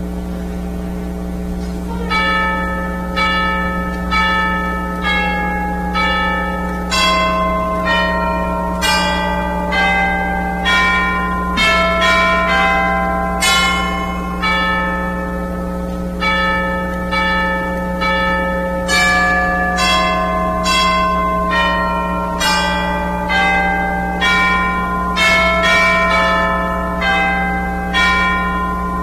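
Chimes playing a slow Christmas melody, struck one note at a time about once a second, each note ringing and fading, over a steady low tone. The notes begin about two seconds in.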